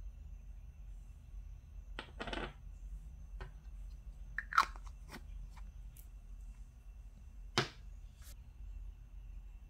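Small plastic bottles, caps and a nail brush being handled and set down on a wooden table: a few light clicks and taps, a short rustling scrape about two seconds in, and two sharper knocks about four and a half and seven and a half seconds in.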